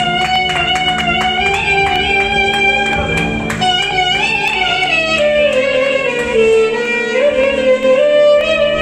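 Clarinet improvising a taksim in makam hicaz: one melodic line bending and gliding in pitch, sinking to a low held note about six seconds in and climbing back up, over a steady low drone from the band. Sharp taps sound through the first three seconds.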